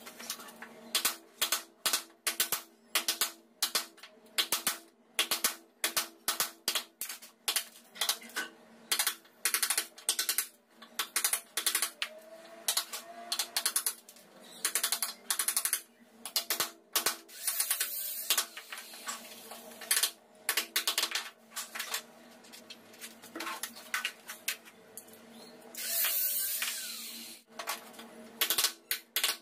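Hammer driving a wood chisel into the edge of a plywood sliding-door panel in quick runs of sharp taps, with a longer scrape of the chisel near the end, cutting a seat for a sliding-door roller fitting.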